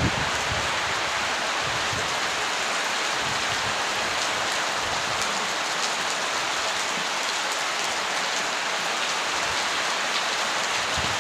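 Heavy downpour: rain falling hard on surfaces as a steady, even hiss with a scatter of faint drop ticks.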